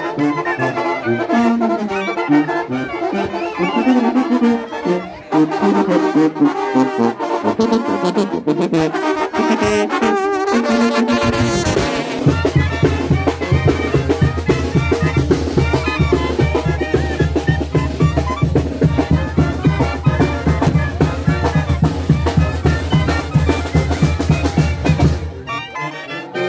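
Brass band music, with trumpets and trombones playing a melody. About twelve seconds in, the music changes to a steady, fast beat over a deep bass line, which stops shortly before the end.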